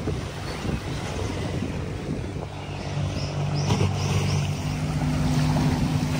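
Steady low drone of a boat's engine out on the water. A second, higher hum joins about four and a half seconds in.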